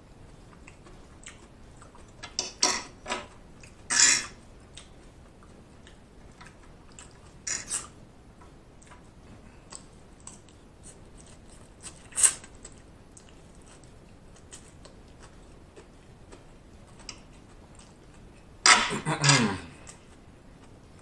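Close-miked eating of chow mein noodles: chewing and mouth sounds in scattered short bursts, with occasional clicks of a fork against the food tray. A longer, louder spell of mouth noise comes near the end.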